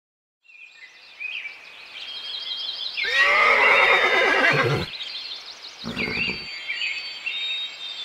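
A horse whinnies loudly about three seconds in, the call falling in pitch as it ends. A shorter second sound from the horse follows about six seconds in.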